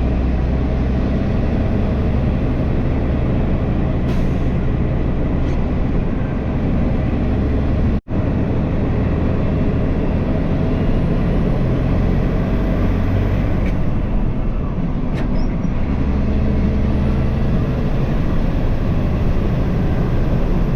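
Grain truck's engine running with road noise while driving slowly, a steady low rumble. The sound cuts out for an instant about eight seconds in.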